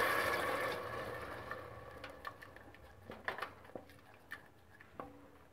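Masala sizzling in hot oil in a steel pressure cooker as water is stirred in, the sizzle fading away over the first two seconds. Then a spoon scrapes and knocks against the cooker several times.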